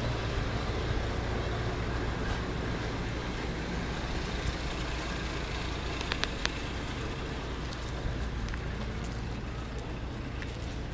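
Steady low rumble of motor-vehicle engine and traffic noise, easing slightly toward the end, with a few short sharp clicks about six seconds in.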